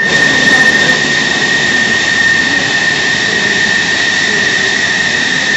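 F-14 Tomcat's jet engines running loud and steady, a high whine held at one pitch over a dense rushing roar.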